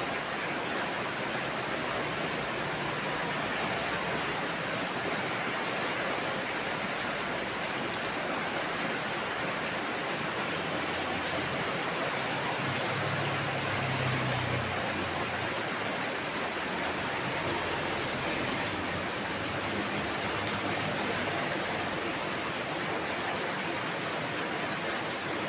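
Heavy rain pouring down in a dense, steady hiss, with a brief low rumble swelling about halfway through.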